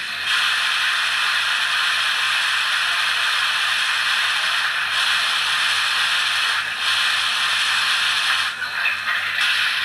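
Steam hiss from the ESU LokSound V5 sound decoder in a ROCO model of the DR class 18 201 steam locomotive, played through the model's small speaker while it stands still. The hiss cuts in suddenly and runs steadily, with brief dips about five and seven seconds in and a longer sag near the end.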